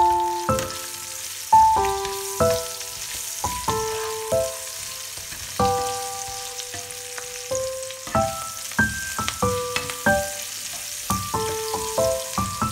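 Octopus pieces, red onion and tomato sizzling in hot oil in a frying pan, a steady hiss, under background music: a melody of short, ringing notes.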